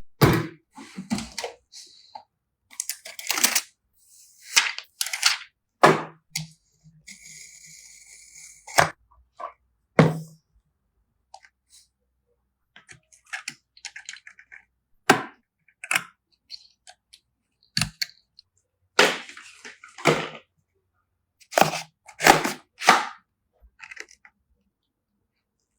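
Irregular sharp clicks, snaps and clacks of PC parts being handled and fitted into a computer case, with a short hiss about seven seconds in.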